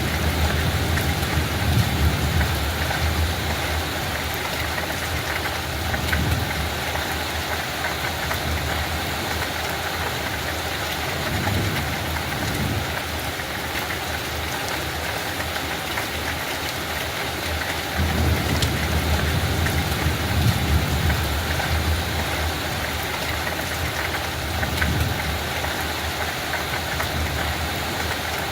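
Steady light rain falling, an even hiss of drops, with low rumbles swelling and fading every few seconds underneath.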